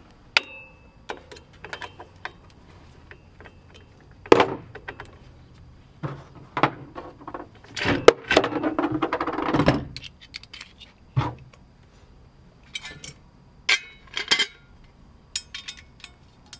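Hand tools and metal BMX bike parts clinking and knocking as the cranks are taken off. There are scattered sharp clicks and knocks, with a longer, louder run of rattling about eight seconds in.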